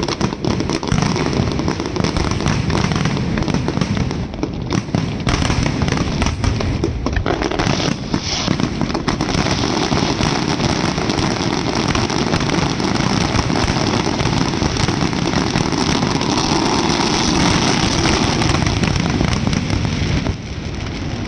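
Fireworks and firecrackers going off in a loud, dense, continuous crackle of rapid bangs, easing a little near the end.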